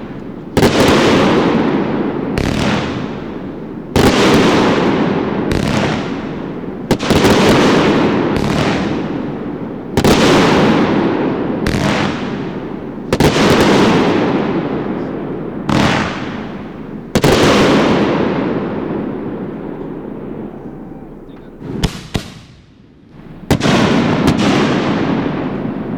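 Aerial fireworks shells bursting one after another: about a dozen sharp booms, each trailing off in a long fading rumble, with a short lull near the end before the bursts start again.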